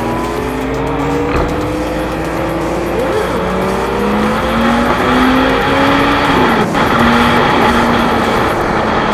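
Sport motorcycle engine pulling under way, its pitch climbing steadily, then dropping sharply about six and a half seconds in before it picks up again, with wind rushing over the rider's microphone.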